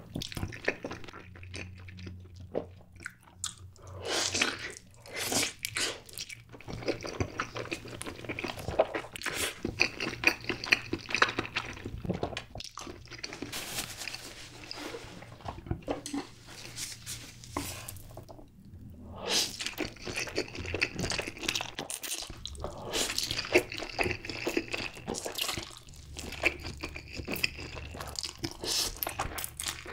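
Close-miked eating sounds: wet chewing and smacking of a block of Spam topped with cheese, then slurping of spicy stir-fried Buldak noodles near the end.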